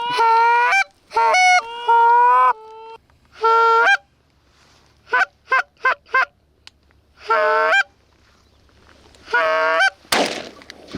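Hand-blown goose calls: loud honks that break upward in pitch, a quick run of five short clucks in the middle, then more honks, calling a single goose back toward the decoys. A single gunshot cracks about a second before the end.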